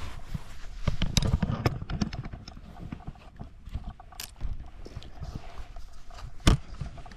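Irregular footsteps crunching and rustling through woodland brush and leaves, with a sharper knock near the end.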